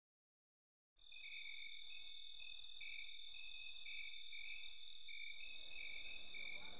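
Crickets chirping in a steady night chorus, a high continuous trill with pulsing chirps, starting after silence about a second in. A low noise swells in underneath near the end.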